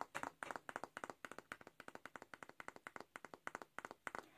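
Fingernails tapping and flicking the pins of a bamboo paddle hairbrush: a quick, soft run of wooden clicks, about seven a second, that stops near the end.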